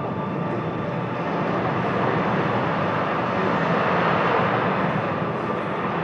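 Ambient electronic soundtrack of an immersive projection-art hall: a steady rushing drone with a few faint held tones in it.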